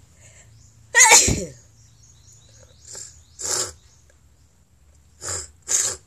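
A woman sneezing once, loud and sudden, about a second in. Four shorter, quieter breathy bursts follow over the next few seconds.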